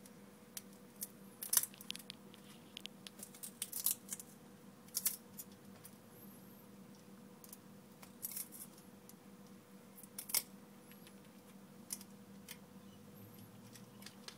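Irregular light clicks and scrapes of plastic opening tools prying the iPhone 4's front panel loose from its metal frame.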